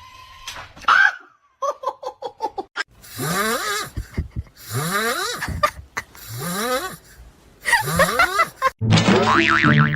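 A pet animal making a series of loud, rasping calls that each rise in pitch, about one a second.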